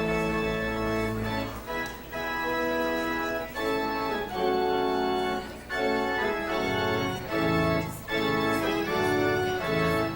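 Organ playing the closing postlude in sustained chords that change about once a second. Its deep bass notes drop out about one and a half seconds in and come back near seven seconds.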